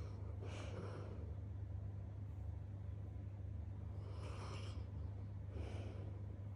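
Snoring: three noisy breaths, one about half a second in and two close together around four and five and a half seconds in, over a steady low hum.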